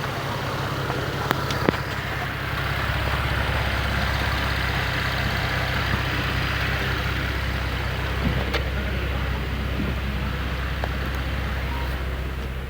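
Nissan 370Z's 3.7-litre V6, freshly rebuilt, idling steadily just after starting; it runs quietly and evenly.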